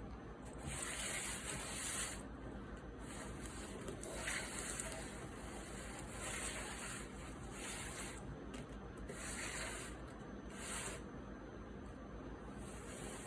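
Faint rustling and rubbing noise in uneven bursts every second or two, from LEGO minifigures and pieces being handled and posed.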